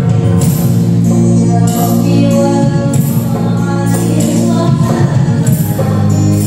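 Qasidah-style sholawat music: voices singing a devotional melody over a sustained accompaniment, with jingling frame-drum or tambourine strokes keeping a steady beat.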